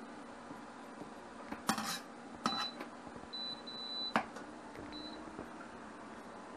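Kitchen dishes and utensils clattering: a short rattle, then a couple of knocks and clinks, the sharpest about four seconds in, with a thin high tone coming and going.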